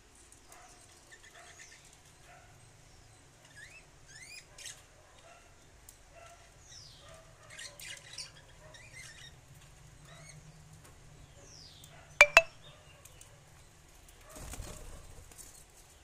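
Budgerigars chirping in short rising calls now and then. Two sharp clicks a little past the middle are the loudest sound, and a brief rustle comes near the end.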